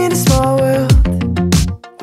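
Pop music with a steady drum beat under sustained chords, dropping out briefly near the end.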